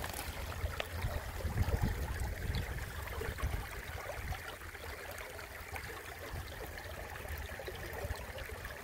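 Shallow creek water trickling over gravel, a steady wash with a low rumble underneath.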